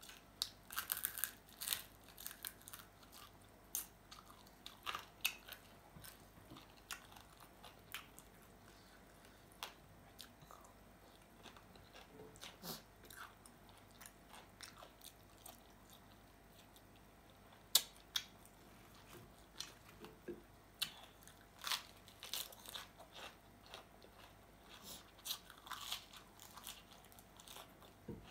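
Close-up eating sounds: a person biting and chewing crisp fish-sauce fried chicken wings, with irregular sharp crunches throughout and a single loudest snap about two-thirds of the way through.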